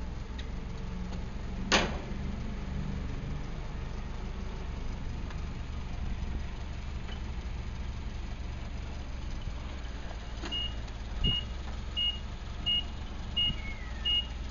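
Forklift engine running steadily, with one sharp metal clank about two seconds in and a thump later. Near the end a backup alarm starts beeping, about one beep every 0.7 seconds.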